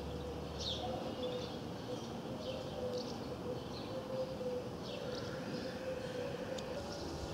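T-41D Mescalero light propeller plane droning high overhead, a steady distant hum that wavers a little in pitch. Several short bird chirps sound over it.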